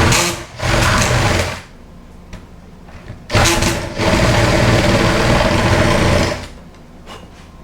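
Handheld electric drill boring a hole into a wooden camper door, run in four spurts, the last about two seconds long, then stopping.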